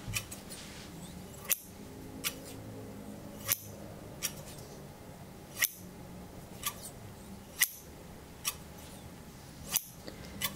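Ornate shears snipping shut in the air with crisp metal snips about every two seconds, each followed by a softer click.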